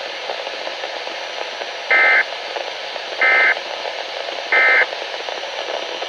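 NOAA Weather Radio EAS end-of-message code: three identical short bursts of two-tone digital data, about 1.3 s apart, over a steady hiss of radio static. The bursts mark the end of the severe thunderstorm warning broadcast.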